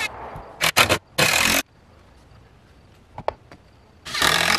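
Two short bursts of a cordless power driver, about half a second each, driving screws into wooden door trim, with a few sharp knocks of wood and tool between them.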